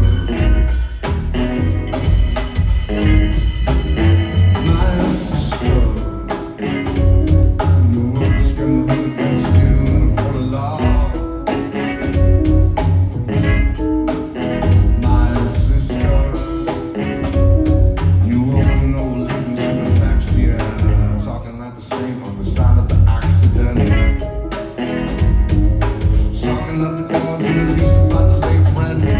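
Live band music: a drum kit and a heavy bass line keep a steady beat, with other instruments and some singing over them.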